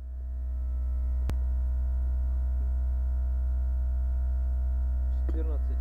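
Air suspension compressor running with a steady low hum, pumping the system up toward almost 14 atmospheres. A single sharp click about a second in.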